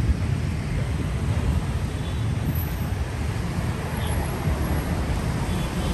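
City street traffic noise: a steady low rumble of road traffic.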